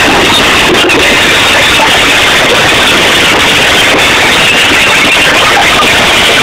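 Live band music with singers, recorded so loud on a phone that it turns into a harsh, distorted, constant wash of sound.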